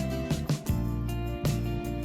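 Background music: gentle plucked guitar with a steady rhythm.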